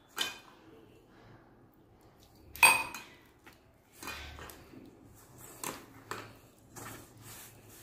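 Bangles clinking against each other and against a stainless-steel mixing bowl as a hand works flour into dough: a few scattered metallic clinks, the loudest about two and a half seconds in and ringing briefly, with soft rubbing of the flour between them.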